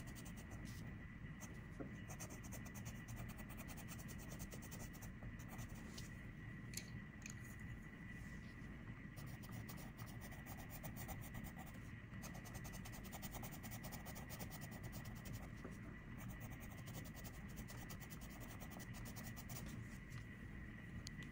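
Coloured pencil shading on paper: quick, faint scratchy strokes. Behind them are a steady low hum and a thin steady high tone.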